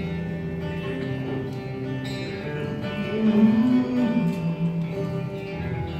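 Guitar playing a slow introduction of long held notes.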